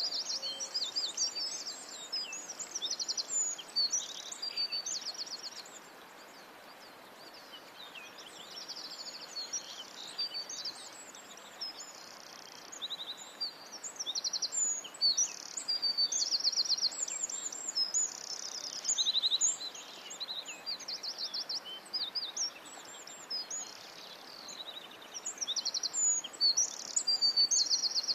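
Several small birds singing, a dense mix of quick chirps and rapid trills over a steady faint hiss. The song thins out for a few seconds near the start, then fills in again.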